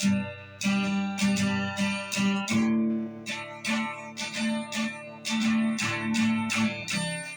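Acoustic guitar strummed in a steady rhythm, with no voice, and a chord change about two and a half seconds in.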